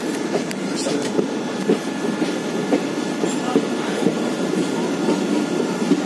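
Train running along the track, heard from on board: a steady rumble of wheels and carriage with irregular clicks and clacks from the rails.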